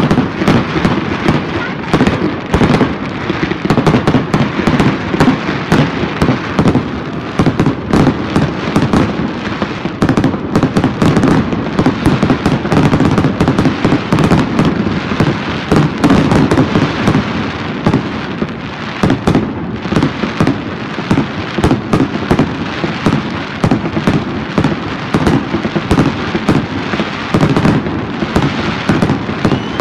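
Fireworks display at full barrage: aerial shells bursting overhead in a dense, continuous run of loud bangs and crackles, several a second, over a steady rumble.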